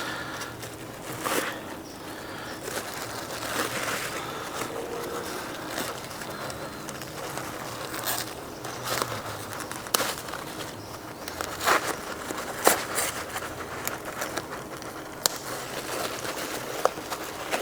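Plastic packaging crinkling, with scattered sharp clicks and rustles, as a new replacement display lens is unwrapped by hand.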